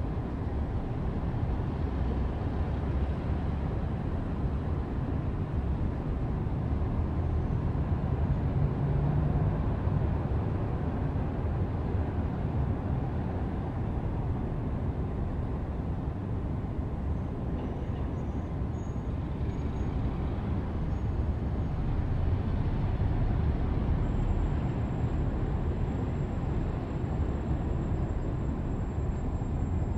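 Heavy vehicle engine running with a steady low rumble.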